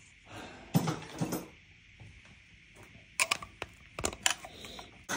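Torque wrench tightening a diesel injector hold-down bolt to 14 N·m: a knock about a second in, then a quick run of sharp metallic clicks a little after three seconds.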